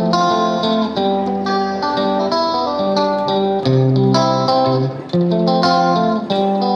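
Background music led by plucked guitar, notes picked in a quick steady pattern.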